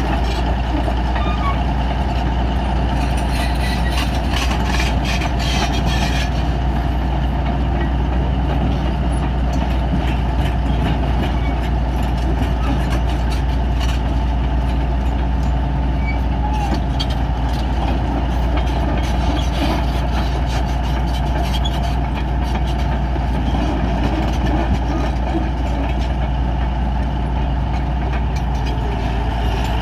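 Bulldozer engine running steadily under work, with a spell of clicking and clatter a few seconds in.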